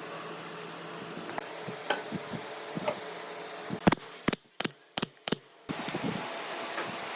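A steady low hum and hiss with scattered light taps. About four seconds in come five sharp knocks in quick succession, the loudest sounds here.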